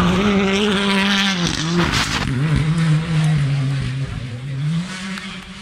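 Rally car's engine at high revs on a gravel stage, the pitch falling and rising several times as it slides through a bend close by, with a brief noisy spray of tyres on gravel about two seconds in. The sound fades as the car drives away near the end.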